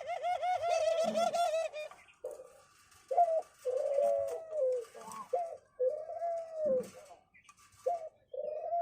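Aviary doves sold as 'Australian doves' cooing. A quick, warbling coo rolls for about two seconds, followed by a run of separate coos, several of which slide down in pitch at the end.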